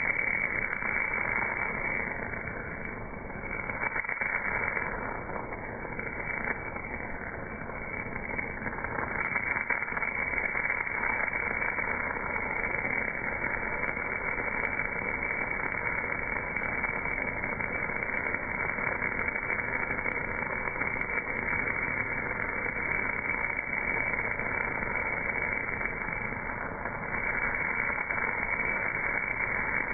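MAG welding arc at 280 A on a casting, heard slowed down with the slow-motion footage: a steady, dense, dull hiss and crackle with no high end. It dips slightly a few times.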